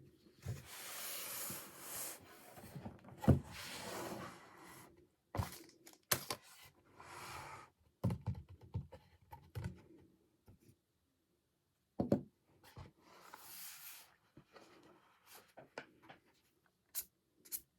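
Hands handling and unwrapping an item and its packaging: several rubbing, rustling swells with scattered sharp clicks and taps between them.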